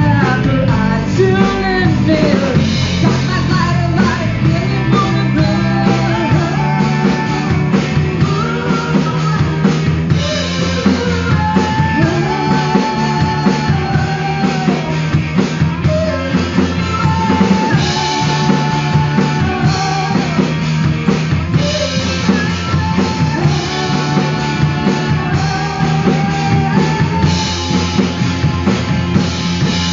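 Live rock band playing a song: electric guitar, bass guitar and drum kit keeping a steady beat, with lead vocals sung over them.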